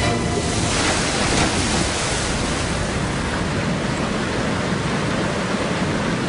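A steady, loud rushing noise with no clear pitch or rhythm.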